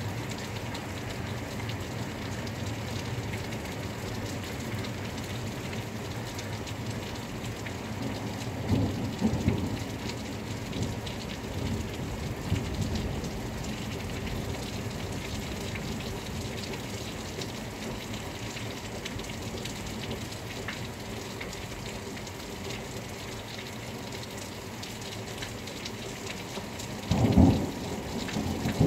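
Steady rain falling, with a low rumble of thunder about nine seconds in and a louder clap of thunder near the end.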